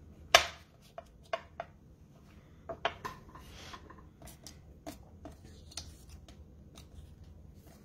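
A clear acrylic stamping block set down on the work mat with one sharp knock, followed by scattered light clicks and taps and some paper handling as die-cut paper envelopes are moved.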